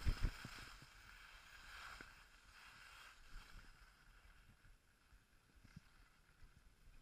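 Skis scraping and hissing over packed snow, faint, with a few low knocks right at the start; the hiss dies down after about three seconds as the skier glides straight.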